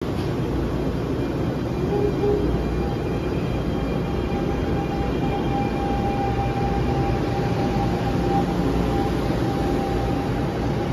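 NJ Transit Arrow III electric multiple-unit train departing and rolling past at low speed: a steady rumble of wheels and running gear, with a thin steady whine from about two seconds in.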